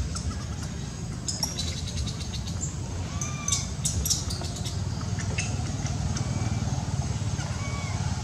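Outdoor background: a steady low rumble with scattered short high chirps, and a few brief arched squeaks about three, six and eight seconds in.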